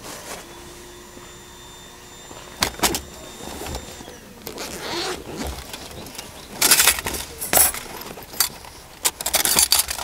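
Irregular sharp clicks and clattering, as of small hard objects being handled. It comes in clusters about three seconds in, around seven seconds and near the end.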